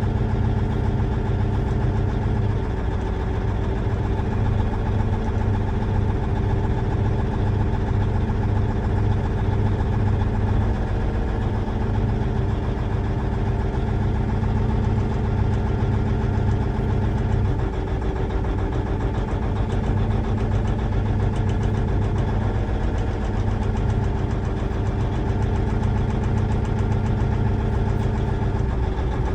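Cummins N14 inline-six diesel running at a steady idle during a cylinder cutout test, with one cylinder's injector switched off by the scan tool. The engine note shifts a couple of seconds in and again about halfway through.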